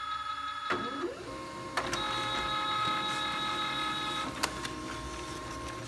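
Pantum 6500 laser multifunction printer running: a steady motor and gear whine of several tones with a few sharp clicks, the strongest about four and a half seconds in. It runs smoothly with a freshly replaced toner cartridge, the worn-out cartridge having been the cause of its earlier knocking.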